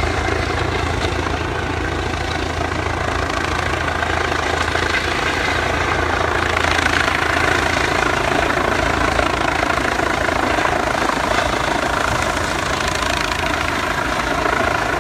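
Air ambulance helicopter descending low toward a landing, its rotor and turbine engine running steadily and loudly, swelling slightly about seven seconds in.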